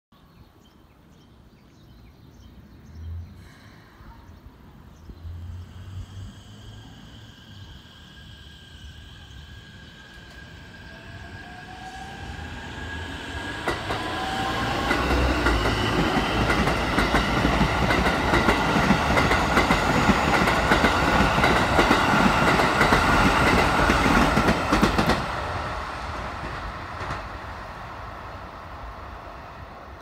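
A Japanese bush warbler sings its 'hokekyo' call near the start. Then an eight-car Keikyu 1000-series electric train pulls away, its traction motors whining and rising in pitch as it gathers speed. It passes close by with its wheels clattering over the rail joints, loudest through the middle, then fades as it runs off.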